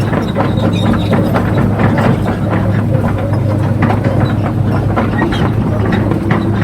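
Electric motors and gearing of radio-controlled model construction machines running: a steady hum with irregular clicking and clatter.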